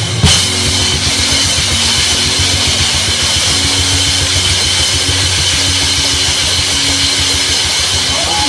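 Live gospel band led by a drum kit: a loud hit just after the start, then a fast, rumbling run of low drum strokes under held notes and a steady wash of cymbals.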